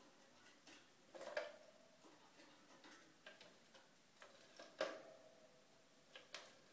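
Canary bathing in a clip-on plastic bird bath: faint, irregular splashes and ticks as water is flicked against the clear plastic hood. Two louder splashes come about a second and a half in and near five seconds in.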